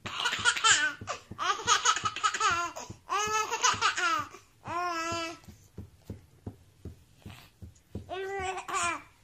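A baby laughing hard in about five high-pitched bursts of giggling, the last coming after a pause of a couple of seconds.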